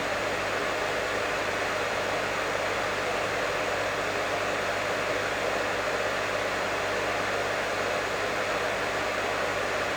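Professional hair dryer running steadily: an even rush of blown air over a low motor hum, unchanging throughout.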